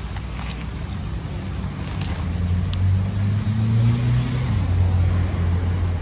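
Low engine hum from a motor vehicle, swelling and rising a little in pitch midway, then settling. A few faint light clicks are heard on top.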